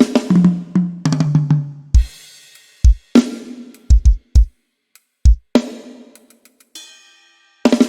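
Drum kit from a SONAR music-software project, played in short sound-check phrases of kick, snare, hi-hat and cymbal hits with gaps between them. A fill steps down across two toms early on, and a short ringing metallic note sounds near the end.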